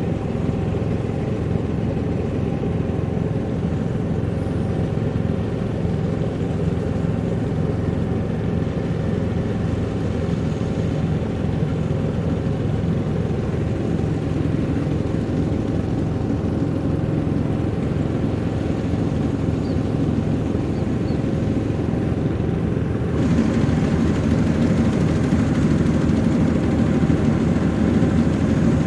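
Maxxi Bimo NDR102L combine harvester running steadily with an even engine drone. It gets louder and harsher about three quarters of the way through.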